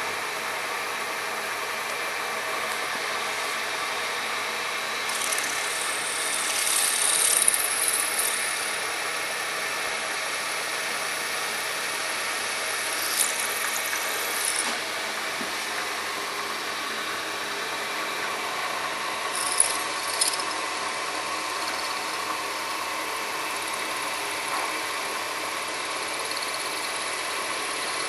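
Milling machine spindle running steadily with a 4 mm drill bit boring the air transfer port into an airgun receiver block. Short high-pitched squeals from the cutting bit come a few times as it feeds in.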